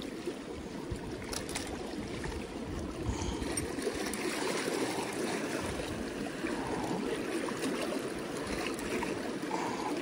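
River water washing and trickling over shoreline rocks in a steady wash.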